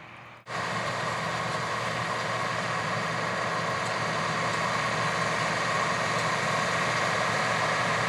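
Older Massey Ferguson 860 combine running while harvesting soybeans, a steady engine and machinery drone with a faint steady whine. It cuts in suddenly about half a second in and grows slightly louder as the combine comes closer.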